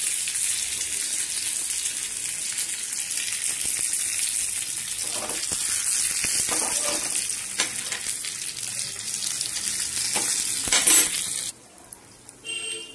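Curry leaves and dried red chillies crackling and sizzling in hot groundnut oil in a small tempering pan, the tadka for rasam. The sizzle is steady, then cuts off suddenly about a second and a half before the end.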